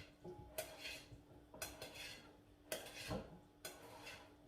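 Utensils stirring and tossing a salad in a bowl, with a scraping clatter about once a second.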